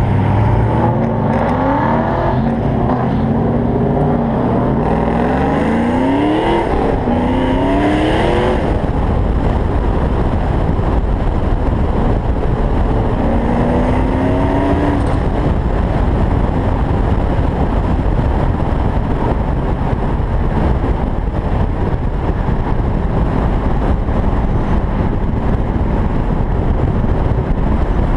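Car engine accelerating hard through the gears, its pitch climbing and dropping back with each shift several times in the first nine seconds, with one more climb a little past halfway. After that, steady wind rushing over the microphone of an open convertible at highway speed covers most of the sound.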